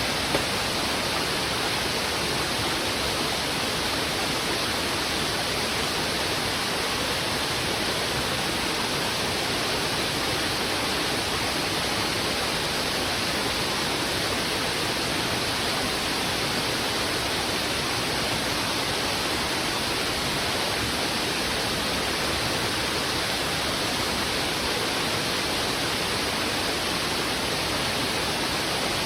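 Heavy river water rushing steadily over rocks: an even, unchanging rush with no single splash or bird standing out.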